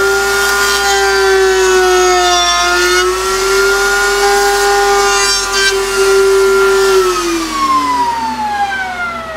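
Table-mounted router running with a loud, steady high whine as a cutting board's edge is fed past a roundover bit, the pitch sagging slightly under the cut. About seven seconds in the motor is switched off and its whine falls steadily in pitch as it spins down.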